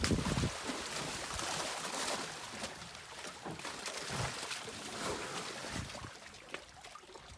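Muddy water sloshing and splashing around an African elephant's legs and trunk as it moves about in a water hole, with wind rushing on the microphone.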